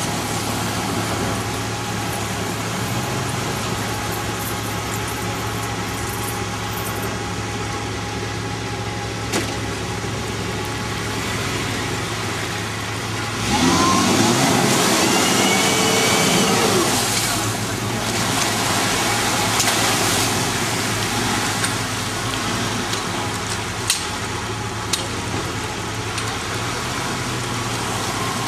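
Off-road 4x4 engines running low and steady as they crawl through a muddy creek. About halfway through, an engine revs up louder for a few seconds, its pitch rising and falling.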